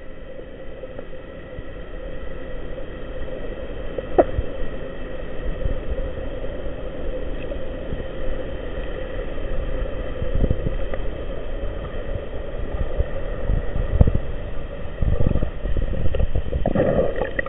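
Underwater noise picked up through an action camera's waterproof housing: a muffled low rumble and hiss with a steady hum, broken by a few sharp knocks against the housing. Near the end comes a short burst of splashing as the camera nears the surface.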